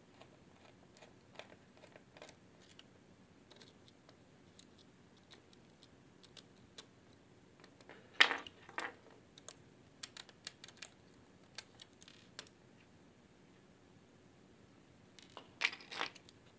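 Faint small clicks and scrapes of a precision screwdriver working a screw out of a 2.5-inch laptop hard drive and handling its small metal parts, with a louder clack about eight seconds in and a few more near the end.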